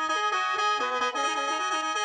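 Khaen, the Lao bamboo free-reed mouth organ, playing a quick stepping melody over steady held drone notes. A fast pulsing rhythm of about six or seven beats a second runs under the tune.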